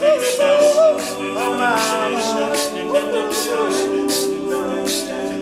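All-male a cappella group singing sustained backing harmonies over a steady beat, with no lead lyric at this point in the song.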